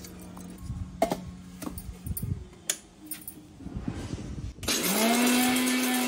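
A few knocks of the steel jar being handled, then, about three-quarters of the way in, an electric mixer-grinder motor starts: its pitch rises quickly and then holds steady as it grinds coconut and whole garam masala.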